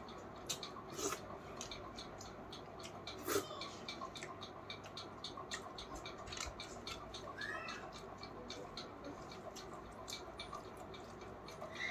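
Close-up mouth sounds of someone eating: wet smacking and chewing clicks, several a second and irregular, over a faint hiss, with one louder smack a little after three seconds in. A faint short chirp sounds about seven seconds in.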